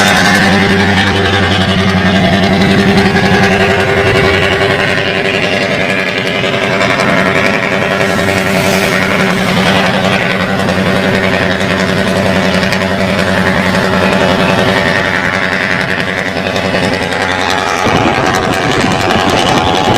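The diesel engine of a loaded Alfa Romeo FNM D-11000 truck running loud on the road, a deep, steady drone.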